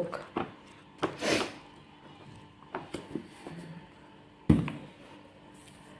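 A thick paperback book being handled: a rustle of pages about a second in, a few small knocks, then one sharper thump about four and a half seconds in as the book is put down.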